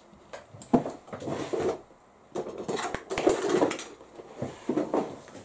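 Paper and scissors being handled on a worktable: irregular rustling and knocking, with a sharp tap just under a second in.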